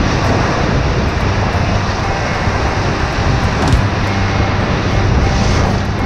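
Whitewater rapids churning and splashing around the bow of an inflatable raft: a loud, steady rushing roar of water and spray.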